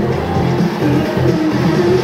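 Loud recorded dance music, with guitar among the instruments, playing steadily for the routine.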